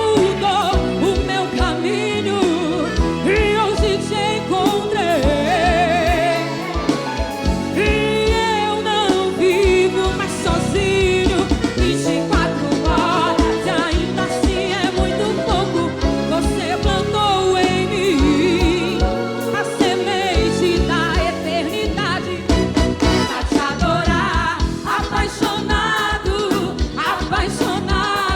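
Live forró band music with a steady beat and wavering melodic lines, part of a Christian forró song.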